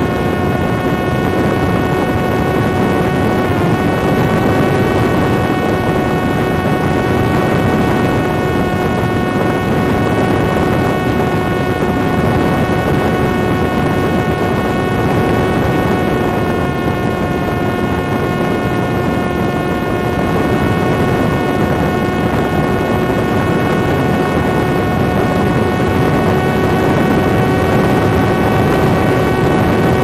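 Parrot Disco fixed-wing drone in flight, heard on board: its electric motor and propeller give a steady whine that holds one pitch, over a loud rush of wind.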